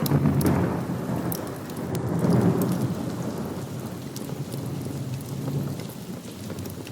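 Rolling thunder rumbling over steady rain. It swells again about two and a half seconds in, then dies away. Scattered sharp crackles sound through the rain.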